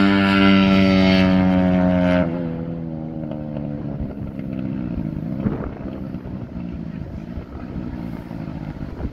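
Engines of a Honda ATC70 three-wheeler with a 190 engine swap and a Ferrari running flat out past the listener. Their steady whine drops sharply in pitch about two seconds in as they go by, then fades as they pull away.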